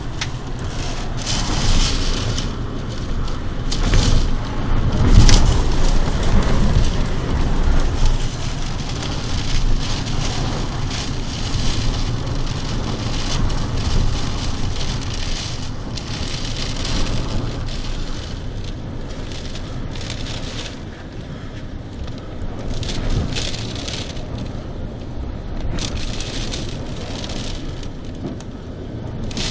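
Storm wind from a tornado rumbling hard on the microphone, with rain hissing, in uneven gusts that are loudest a few seconds in.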